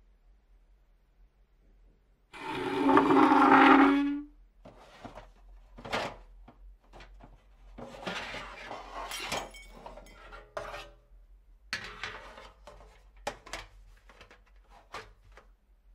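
Rustling and rubbing of blankets and bedding with scattered sharp knocks and clinks, broken about two seconds in by one loud, pitched sound lasting about two seconds.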